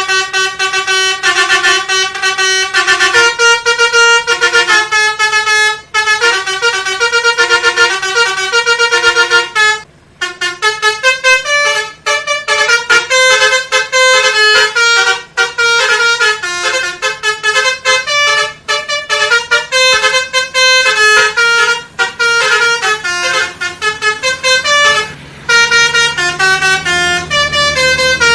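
Telolet bus horn, a multi-trumpet musical horn, playing quick runs of changing notes like a jingle, broken by brief pauses.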